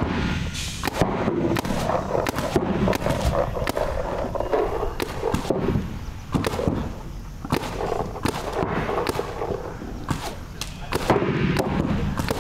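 Paintball markers firing single shots at irregular intervals during a gunfighting drill, with occasional thuds.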